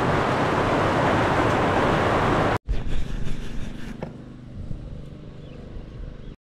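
Steady hiss of rain on the van's metal roof, heard from inside the van, cutting off abruptly about two and a half seconds in. After it comes a much quieter background with a faint low steady hum.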